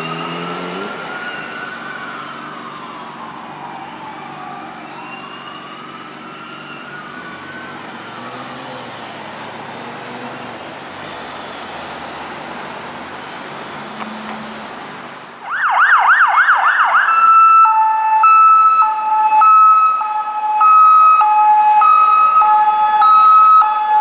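Fire engine siren wailing, slowly rising and falling, with a low horn blast that stops about a second in. About fifteen seconds in, a police car's electronic siren starts much louder: a quick rapid yelp, then a two-tone hi-lo alternating between two pitches roughly every half second.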